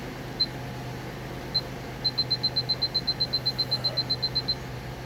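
Electronic button beeps, all on one high pitch: two single beeps, then a rapid run of about twenty at roughly eight a second, as if a button is held down to step through a setting. A steady low hum runs underneath.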